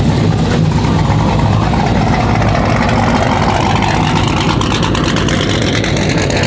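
Modified fifth-generation Chevrolet Camaro's exhaust rumbling loudly and steadily as the car rolls slowly past at low speed and pulls away.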